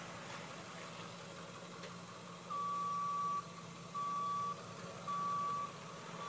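A truck's reversing alarm beeping: three steady single-pitch beeps, each about half a second to a second long, starting about two and a half seconds in, over a steady low hum.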